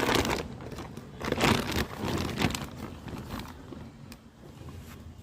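Rustling, crunching noises of handled plant material, likely chopped corn silage, in three bursts during the first three seconds, over a faint low steady hum.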